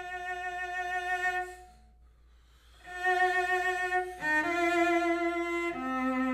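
Solo cello bowed in long held notes with vibrato, part of a strict twelve-tone piece. The note fades out about a second and a half in. After a short pause the playing resumes with sustained notes that step up and then drop to a lower note near the end.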